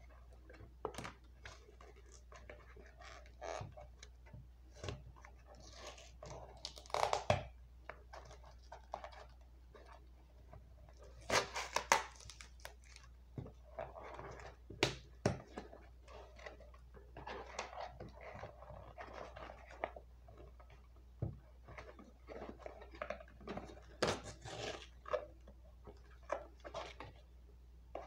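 Small cardboard box being picked at and torn open by hand: irregular scratching, tearing and crinkling of cardboard, with louder tearing bursts about 7, 12 and 24 seconds in.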